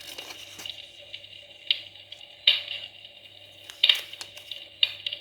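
Fire crackling in a fireplace, a steady faint crackle with a few sharp pops scattered through it.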